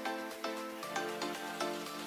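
Instrumental background music: a steady run of struck notes over held tones.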